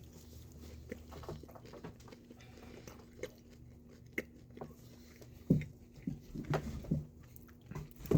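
Close-up chewing of chicken nuggets and fries: wet mouth clicks and smacks, sparse at first and louder and more frequent from about five and a half seconds in.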